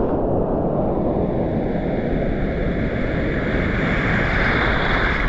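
Breaking surf and whitewater foaming around the microphone in shallow water, with wind rumbling on the microphone. The fizz of the foam grows louder about three seconds in as a broken wave washes past.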